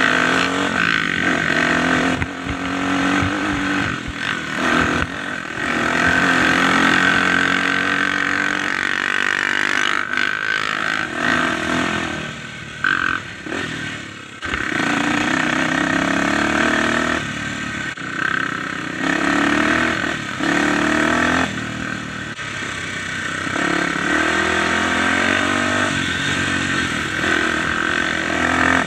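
Dirt bike engine revving up and down with the throttle as it is ridden over a rough trail, easing off for a few seconds about halfway through, with occasional knocks from the bumpy ground.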